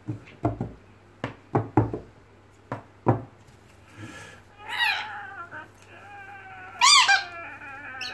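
A series of sharp knocks on the wooden desk in the first three seconds, then a pet red lory calling: a wavering call about five seconds in, a loud arching squawk about seven seconds in, and a quieter drawn-out call near the end.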